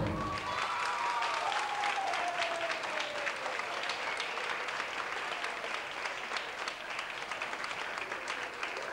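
An audience applauding, with many hands clapping together, right after the dance music stops. A long call from the crowd falls in pitch over the first few seconds.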